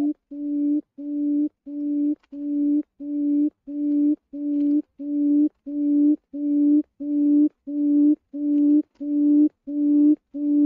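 Quail call: a low hooting note repeated about twice a second in a very even series, each note swelling slightly and then cutting off.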